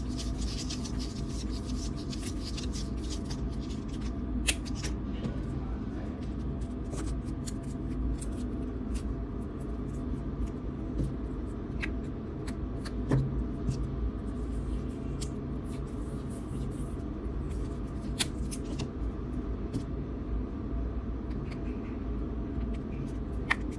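Tape being wound around a battery by hand, with small rustles and scattered light clicks as the battery is handled and pushed into a piece of PVC conduit, over a steady low hum.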